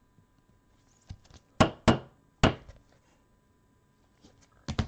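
Sharp plastic clicks and knocks as a trading card in a hard plastic holder is handled and set down on a table. Three come a second and a half in, and two quick ones come near the end.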